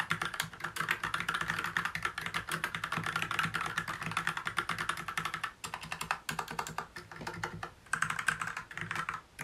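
Fast typing on a Drop CTRL High-Profile mechanical keyboard fitted with GMK Oblivion ABS keycaps: a dense, quick run of key clacks. It breaks off briefly about five and a half seconds in and again near eight seconds.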